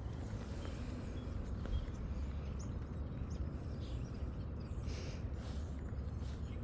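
Outdoor ambience: a steady low wind rumble on the microphone, with small birds chirping on and off and a brief rustle about five seconds in.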